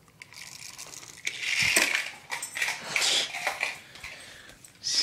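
A small plastic toy car clattering across a hardwood floor, with a dog's claws scrabbling on the boards as it chases. Rapid irregular clicks and scuffs, loudest through the middle, with one more short scuff near the end.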